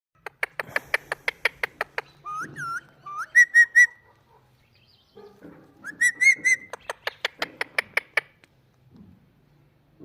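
Parrot clicking and whistling: a rapid run of sharp clicks, then short whistled notes, a couple rising and then three quick repeated ones, then the same notes and clicks again.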